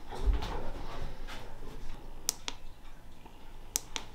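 Two pairs of sharp clicks, a little over two seconds in and again near the end, from the switch of a handheld plastic jar lantern being turned on. Low rustling and a soft thump from handling it come near the start.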